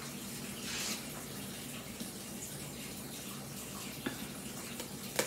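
Quiet steady kitchen hum with a few faint clicks and rustles from handling a cardboard box of ground pepper.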